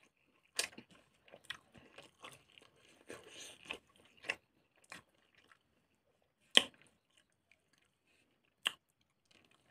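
Close-miked eating sounds of a person chewing pork intestine with rice and green chillies: wet chewing broken by crunches and short sharp clicks, the two loudest clicks about six and a half and eight and a half seconds in.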